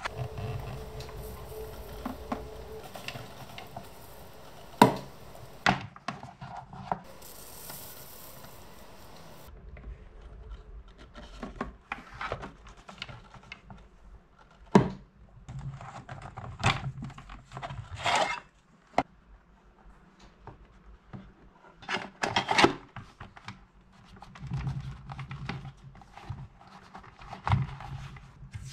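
A bristle brush rubbing over a leather sheath, followed by the sheath and a steel shovel being handled, with scattered knocks, clicks and rubbing of leather against the table.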